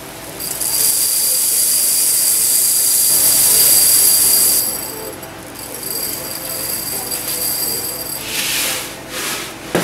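Colour-changing silica gel desiccant beads pouring from a bucket through a lampshade funnel into the air dryer's tube, a steady high hissing rattle. The pour eases off after about four and a half seconds, trickles on more quietly, and gives a couple of short louder spills near the end.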